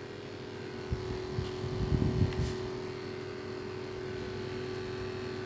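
A steady low hum, with a brief spell of rustling and handling noise and a small click about two seconds in.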